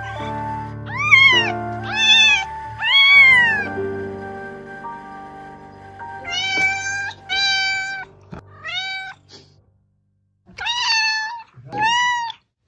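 Kittens meowing: about nine short, high-pitched meows, three in the first few seconds, four around the middle and two near the end. A steady low music drone runs under the first part and fades out partway through.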